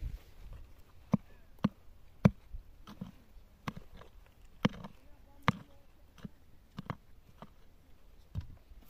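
A series of sharp, irregular knocks, roughly one a second, the loudest a little over two seconds in.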